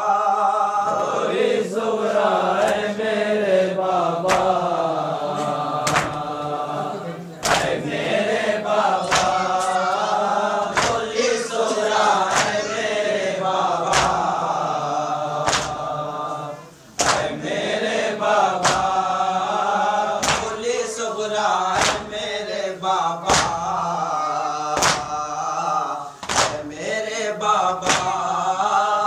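Voices chanting a noha, a Muharram lament in Urdu, in long sung phrases, with a sharp beat every second or two under the chant.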